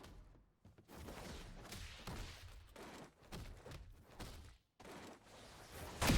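Fight sound effects from an anime playing quietly in the background: a run of irregular punch and hit impacts, with a sharper, louder hit near the end.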